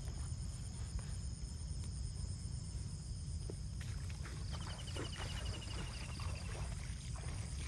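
Wind rumbling on the microphone over a steady high-pitched insect drone. About halfway through, a rapid pulsing insect trill comes in, along with the swish of footsteps through grass.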